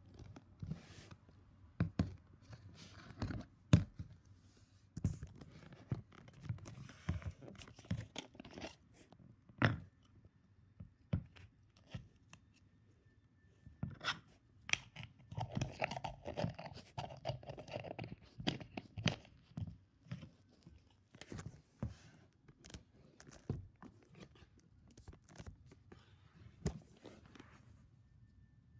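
Irregular clicks, taps and rustling scrapes of something being handled close to the microphone, with a busier stretch of rubbing noise in the middle.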